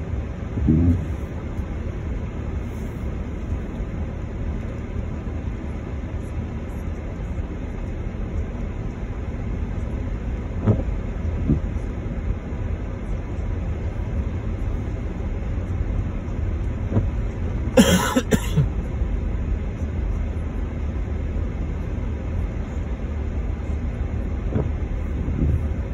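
Steady low rumble of a car's running engine and road noise heard inside the cabin while it creeps along in queuing traffic. A short, sharp burst of noise about two-thirds of the way through stands out above the rumble.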